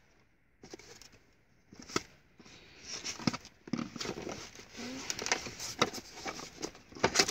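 Handling of a GoPro Hero 4 retail box: the cardboard box and its plastic camera insert rustle and slide, with scattered clicks and taps. The sharpest knocks come about two seconds in and again just before the end.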